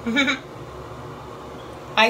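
A woman's brief wordless vocal sound, a short pitched 'mm' that wavers in pitch, just after the start. Then a steady low room hum.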